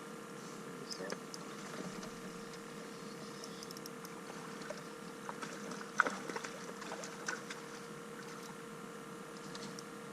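A steady hum with small scattered clicks and knocks of fishing gear being handled in a boat, the sharpest knock about six seconds in.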